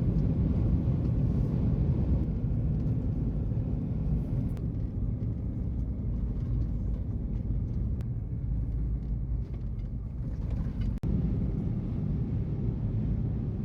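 A motor vehicle driving with its engine running under load, giving a steady low rumble, broken once by a very short gap about eleven seconds in.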